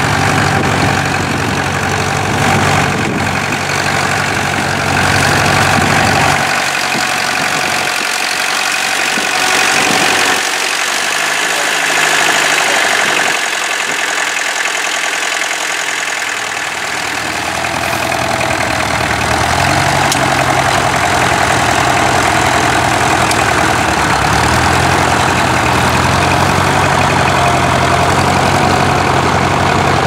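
Engine of a small vintage International tractor running steadily while pulling a mounted plough through the furrow. The low engine note fades for a stretch in the middle and comes back strongly.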